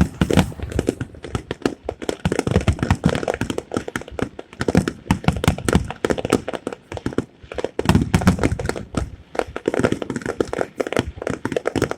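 Fireworks finale: a dense, irregular barrage of shell bursts, several bangs a second.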